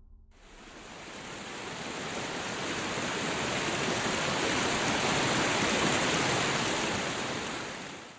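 River rapids rushing: a steady white-water noise that fades in over the first few seconds and stops abruptly near the end.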